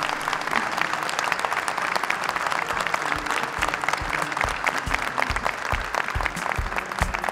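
Audience applauding steadily. About four seconds in, music with a low beat, about two beats a second, comes in under the clapping.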